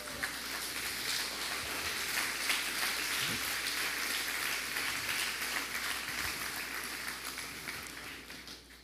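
Congregation applauding in response to a call to glorify God, dense clapping that fades out near the end.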